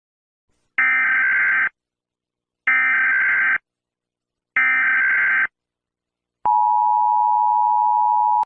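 Emergency Alert System tones: three short bursts of SAME header data, each just under a second long and about a second apart, followed by the steady two-tone EAS attention signal held for about two seconds.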